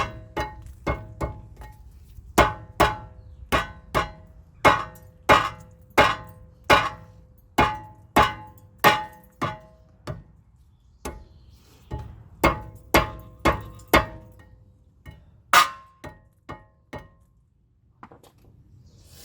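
Hammer blows on a car's steel brake rotor, each strike ringing like a bell, about one or two a second with a couple of short pauses, then stopping near the end. The rotor is being knocked loose where rust has stuck it to the hub.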